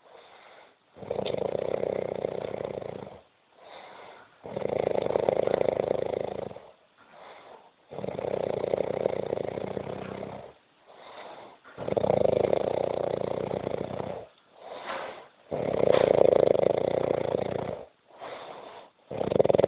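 A drunk person snoring heavily in sleep. Six loud snores, each about two seconds long, come about every three and a half seconds, with a short, quieter breath between them.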